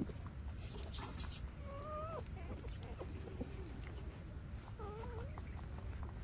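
Newborn puppies whimpering: two short, wavering squeaks, about two seconds in and again about five seconds in, among small clicks and rustles over a steady low rumble.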